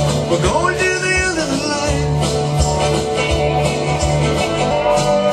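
Country-rock band music between sung lines: acoustic guitar strumming over bass and a steady beat, with a brief gliding note about half a second in.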